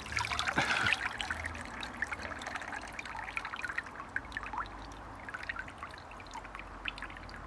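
Water pouring out of the unfilled holes in the bottom of a plastic toy pirate ship's hull and splashing into the water butt below. A dense splash in the first second or so thins to a trickle and scattered drips.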